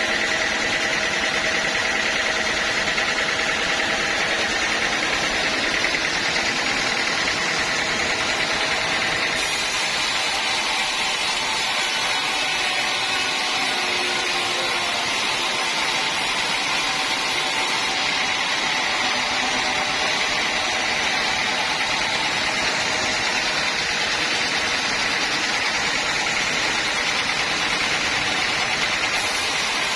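Sawmill machinery running, a steady mechanical noise.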